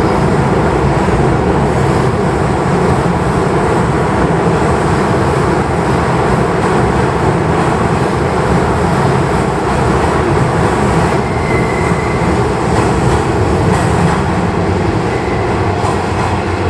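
Hankyu limited express train running into an underground station platform and braking to a stop: a loud, steady rumble of motors and wheels with a little clickety-clack, and a faint high whine about eleven seconds in.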